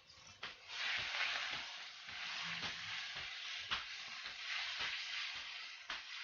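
Brisket sizzling as it fries: a steady hiss that swells about a second in, with scattered sharp clicks through it.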